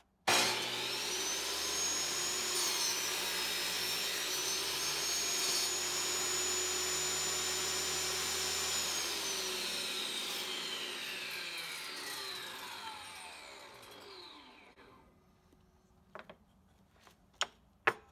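Benchtop jobsite table saw switched on, its motor running up to a steady high whine that sags briefly in pitch as the blade cuts through the clamped piece. The saw is then switched off and the whine falls steadily as the blade spins down. A few sharp clicks come near the end.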